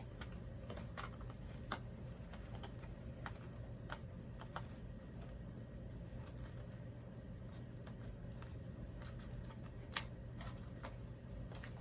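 Hands handling small plastic doll accessories and their packaging: scattered, irregular light clicks and taps, with a steady low hum underneath.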